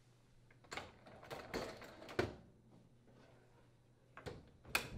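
Wire lower dish rack rolled back into a dishwasher tub, giving light rattles and clicks for about a second and a half. Near the end the dishwasher door is pushed shut, with two sharp clicks as it latches.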